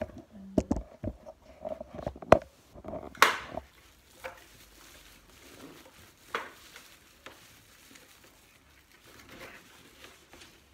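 Vacuum parts and accessories being packed into a cardboard box: a plastic bag rustling and the box being handled. Several sharp knocks and clicks in the first few seconds, the loudest about two seconds in, and a quick rustle a little after three seconds, then softer rustling and taps.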